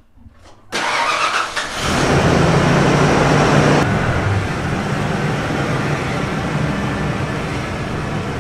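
1994 Ford F-150 engine being started: the starter cranks from about a second in, the engine catches with a brief rev, then settles to a steady idle about four seconds in. The owner calls the truck's idle slightly rough.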